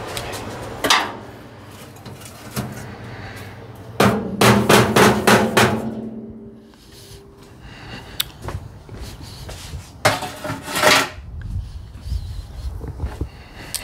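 Sheet-metal parts of a Weber SmokeFire pellet grill clanking as they are lifted out and handled. There is a knock about a second in, then a quick run of metallic strikes about four seconds in that leaves a short ring. A few more clanks come near the end.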